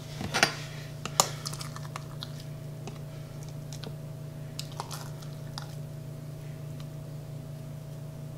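A utensil scooping thick mayonnaise out of a glass measuring cup: a sharp click about a second in, then scattered soft clicks and squelches that stop about six seconds in, over a steady low hum.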